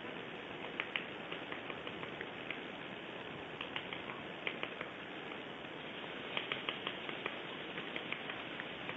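Woodpecker pecking at a tree trunk: irregular sharp taps, sometimes several in quick succession, over a steady background hiss.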